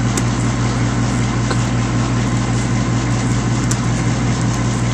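Steady low machine hum with an even rushing noise over it, running without change, and a few faint clicks.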